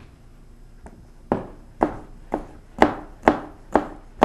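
Chef's knife slicing through a raw potato onto a white cutting board. There is a sharp knock with each stroke, about two a second, starting a little over a second in.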